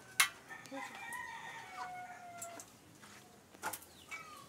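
A rooster crowing once: one long pitched call, about a second in, falling slightly in pitch. A sharp knock comes just before it, and a few softer knocks come near the end.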